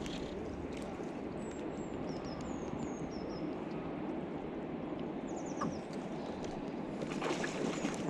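Steady rush of the River Tweed's flowing water, with a small bird calling in short, falling chirps several times in the first half.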